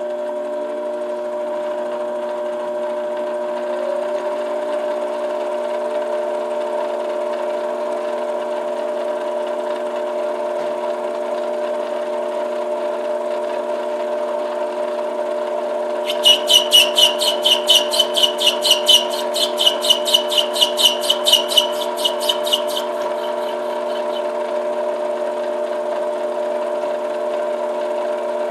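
Metal lathe running with a steady motor whine as the chuck spins an acrylic rod. About halfway through, for some seven seconds, the turning tool bites into the acrylic, adding a loud, high, rapidly pulsing scraping, about six pulses a second, that then stops.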